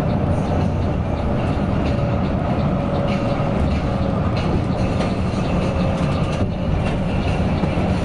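Mercedes-Benz OC 500 RF 2542 coach under way, heard from inside the cabin: a steady low engine and road rumble with a faint whine and scattered light knocks and rattles.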